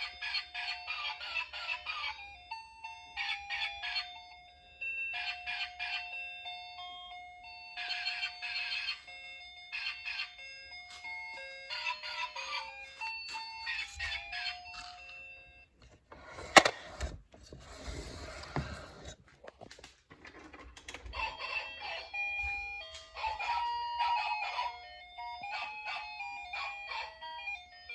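Electronic toy playing short beeping melodies of stepped, steady tones. About halfway through there is a sharp click, then a hissing burst of a couple of seconds, then the tune resumes.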